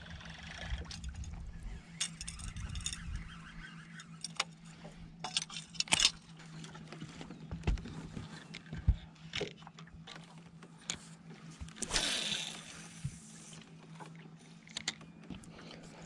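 Fishing reel being cranked and tackle handled: scattered light clicks and knocks over a steady low hum, with a brief rush of noise about twelve seconds in.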